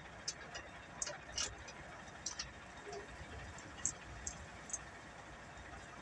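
Light metallic clicks and clinks of hand tools being worked at an excavator's fuel filter, about a dozen sharp ticks at irregular intervals over a faint low rumble.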